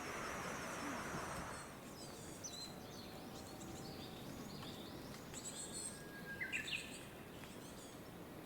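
Small wild birds chirping and calling in short scattered notes over faint outdoor background noise, with one louder rising call about two-thirds of the way through.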